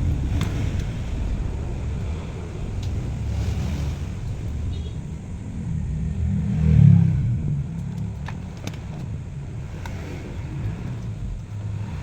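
Car engine running with a low rumble that swells briefly about seven seconds in, with a few light clicks.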